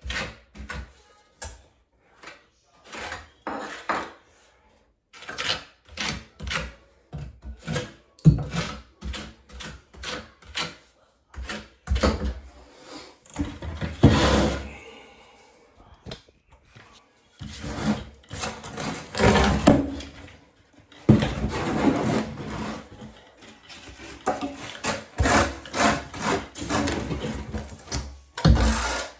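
Trowel scraping and spreading thinset mortar in many irregular strokes of varying length.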